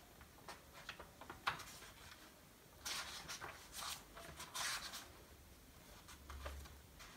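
Paper pages of a book being leafed through and rustled by hand: a few light ticks first, then louder rustling of pages in the middle.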